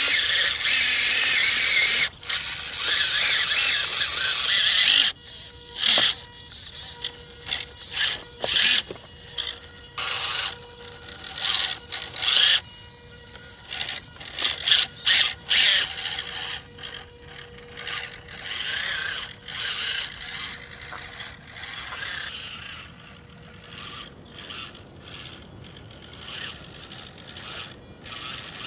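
Electric motor and gear drivetrain of a 1/24-scale Losi Micro Trail Trekker RC crawler whining, steadily for the first few seconds, then in many short throttle bursts with pauses between.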